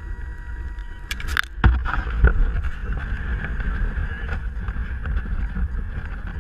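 Radio-controlled truck driving, heard from a camera mounted on it: a steady drivetrain whine over a low wind rumble on the microphone. A few sharp knocks come between one and two and a half seconds in as it jolts over the ground.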